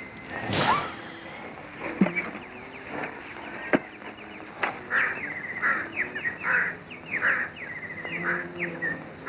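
Jungle bird calls from an old black-and-white film's soundtrack playing on a television: many short chirps and quick trills. A few sharp clicks come through, the loudest just after the start, about two seconds in and near four seconds.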